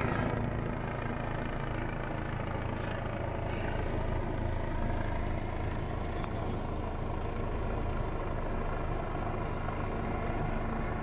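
A steady engine drone, even and unchanging, with a low hum.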